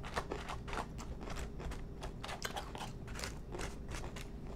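A person chewing a mouthful of food close to the microphone, with crisp crunching several times a second.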